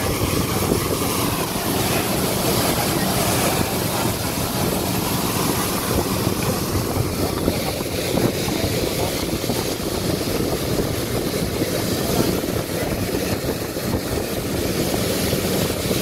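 Boat engine running steadily under way, with water rushing past the hull and heavy wind noise on the microphone covering it as an even roar.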